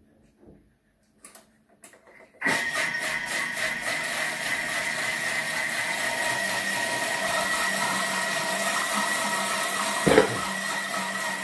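Countertop kitchen robot (food processor) switched on about two seconds in, its blades spinning steadily to beat raw eggs, with a constant high whine over the motor noise. A short knock sounds about ten seconds in.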